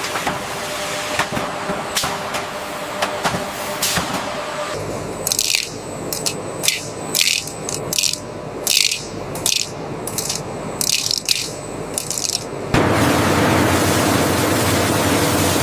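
Processing-line machinery: clicking over a steady hum, then about a dozen short hissing sprays, one every half second or so. About 13 s in, a louder steady rush of noise starts suddenly.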